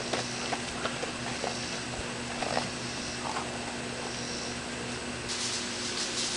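Steady outdoor background noise: an even hiss with a low steady hum and a few faint scattered ticks. About five seconds in, the hiss turns louder and brighter.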